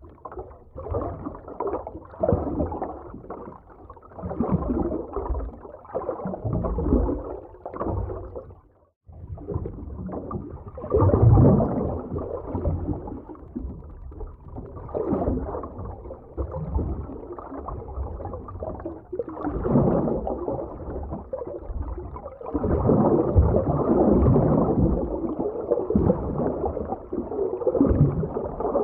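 Muffled underwater sea ambience: low rumbling surges of water with gurgling and bubbling, swelling and ebbing. It drops out briefly about nine seconds in.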